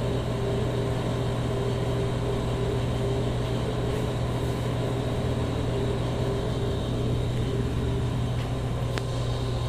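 A steady low machine hum that does not change, with a faint click near the end.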